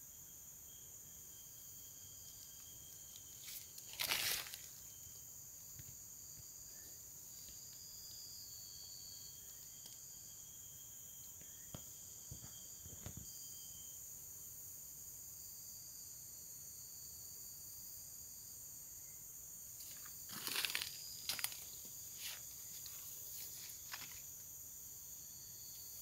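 Insects calling in a steady, high-pitched chorus. Short rustling or knocking noises break in about four seconds in and again around twenty seconds in.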